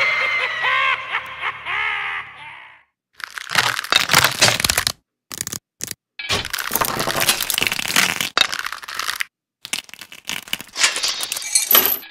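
Animated skeleton sound effects: a wavering, swooping tone for about the first two seconds, then repeated crashing and clattering in bursts with short gaps, as the skeletons break apart and their bones scatter.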